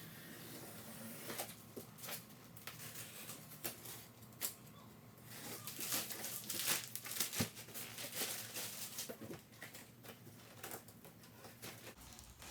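Plastic wrapping crinkling and tearing as it is cut and pulled off a table saw's shipping box, with scattered light clicks and knocks of handling. It is busiest around the middle.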